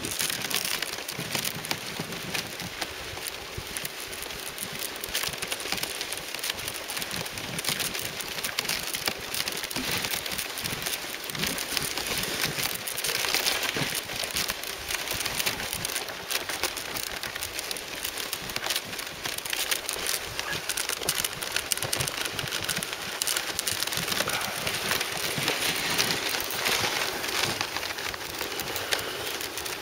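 Dog sled travelling over snow: a steady crackling, crunching hiss of the runners and the team's paws on the snow.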